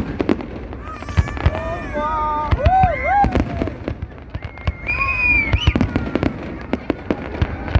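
Fireworks going off in quick, irregular bangs and cracks over a low rumble, with voices calling out from the crowd between the bursts.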